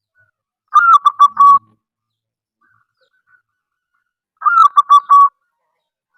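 Zebra dove (perkutut) cooing: two short phrases about three and a half seconds apart, each a quick string of staccato notes that opens on a slightly higher, sliding note.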